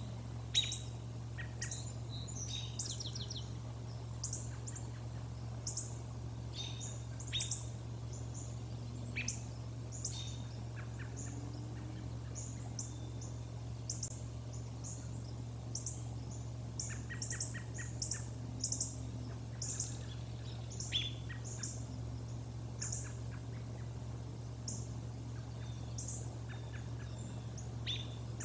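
Small birds calling: many short, high chirps scattered throughout, with a few quick rattling calls, over a steady low hum.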